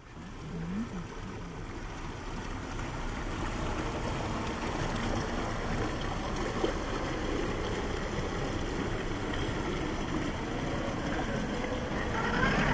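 Steady rush of stream water with the electric motor and gears of a Traxxas TRX-6 6x6 RC rock crawler whining as it climbs the rock; a brief rising whine near the end.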